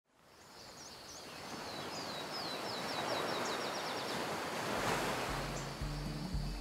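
Rushing water fades in from silence and builds to its loudest a little past the middle. A bird sings a fast trill of repeated notes partway through. Soft music with low sustained notes comes in near the end.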